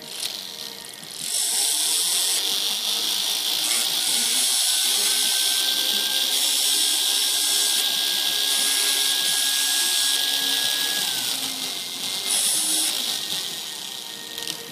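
Jeweller's pendant motor spinning a fine abrasive paper disc against 18ct red gold ring claws: a steady, high-pitched grinding hiss that starts about a second in and eases off near the end.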